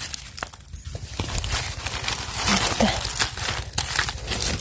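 Dry fallen leaves rustling and crackling as a hand moves through the leaf litter, getting louder about a second in.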